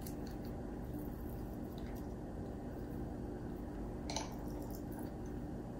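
Soft squishing and small clicks from a plastic marinade injector being pushed into raw turkey and refilled with Cajun butter from a bowl, with a slightly sharper click about four seconds in. A steady low hum runs underneath.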